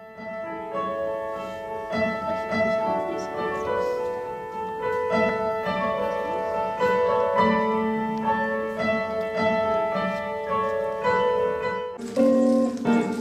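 Instrumental music: a keyboard instrument, heard as piano, plays a melody of held notes. About twelve seconds in, the sound switches abruptly to a louder, brighter passage.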